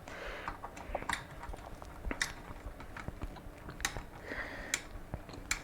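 Screwdriver tightening a CPU heatsink's mounting screws on a motherboard: faint, irregular small clicks and ticks, with a few sharper ones.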